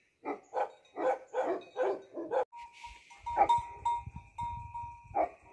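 Tibetan Mastiff barking: a quick run of about seven barks, then two single barks spaced apart, with a steady high tone behind the later ones.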